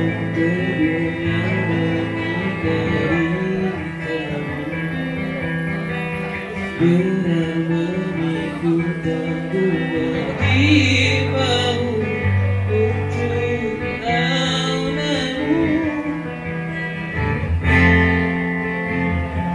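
Live acoustic band playing a song: acoustic guitar with a low bass line and a voice singing the melody.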